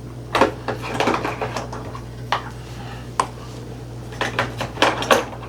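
Small hard objects clicking and clinking irregularly, a dozen or so light knocks, as small bottles and items are picked through in search of a bottle of knife lube, over a steady low hum.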